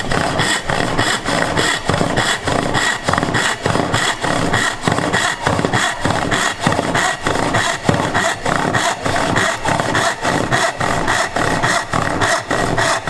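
Hand saw cutting a tenon in wood, with fast, even back-and-forth strokes at about four a second.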